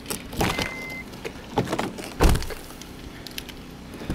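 Handling a 2006 Honda CR-V while getting in to start it: scattered clicks and rustles, a short steady high beep about half a second in, then one heavy thud like the car door shutting a little over two seconds in.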